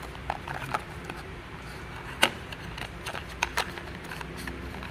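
Hands handling unboxing packaging: scattered small clicks, taps and rustles of a cardboard box and the wrapped items inside it, with one sharp click a little over two seconds in.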